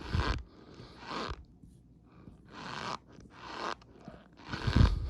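Messy, fast eating with a stuffed mouth: wet chewing and smacking in five separate bursts, the loudest with a deep thump near the end.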